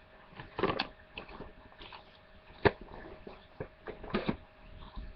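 Handling noises of fireworks packaging: a rustling knock about a second in, one sharp click near the middle, and a short cluster of knocks toward the end, over a faint steady hum.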